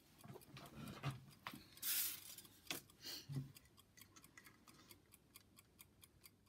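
Quick, even faint ticking, with a brief rustle about two seconds in.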